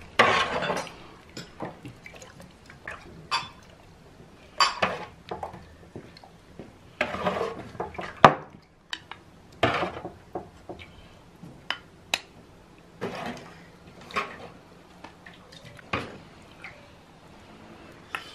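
A metal ladle clinking and scraping against a large metal basin while fruit preserve in syrup is scooped out and poured into glass jars, with irregular knocks and liquid slops.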